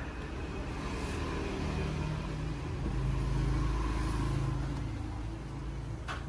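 Low motor rumble that swells about three to four seconds in and then fades, with a short click near the end.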